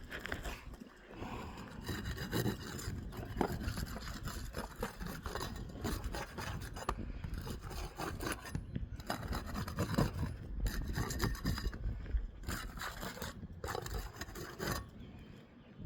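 Irregular scraping and rubbing on asphalt roof shingles as they are worked loose, breaking their seal and getting at the nails that hold the shingle below.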